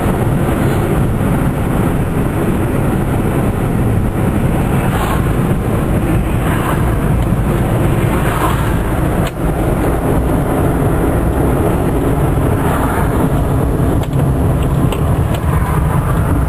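Steady engine and road noise heard inside the cabin of a 1997 Geo Metro driving on a wet road.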